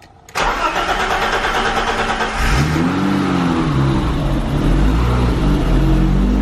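1989 BMW E30's engine being cranked by the starter, catching about two and a half seconds in, revving up briefly and settling into a steady idle. It is the car's first start in about a year.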